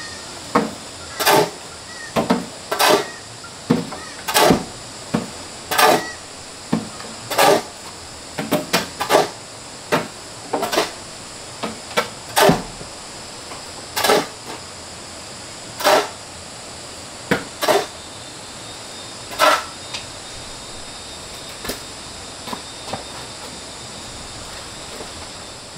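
Broom sweeping a dusty dirt floor in short, scratchy strokes about one to one and a half seconds apart; the strokes thin out and stop about twenty seconds in.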